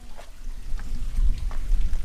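Wind buffeting the microphone: a loud, uneven low rumble, with a few faint clicks.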